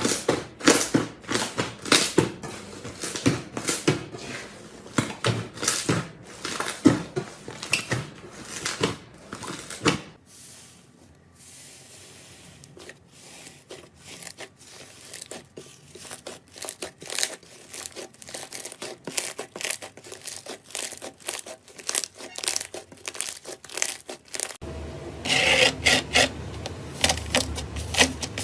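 Slime being squeezed and worked by hand, giving a dense run of small crackling clicks and pops.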